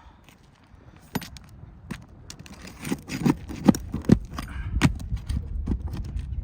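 Irregular knocks, clacks and scrapes of a hand tool working asphalt shingles and their nails loose on a roof, the loudest strikes about three to five seconds in.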